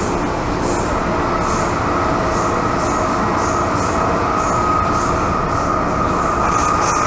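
Interior of an MTR M-train metro car running on the line: a steady rumble of wheels on rail with a steady high whine, and soft high hissing swishes about once a second.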